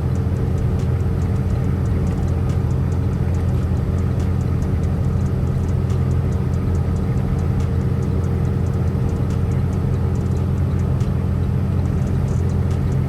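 Steady low drone of a semi truck's diesel engine and road noise inside the cab while driving, with faint scattered ticks over it.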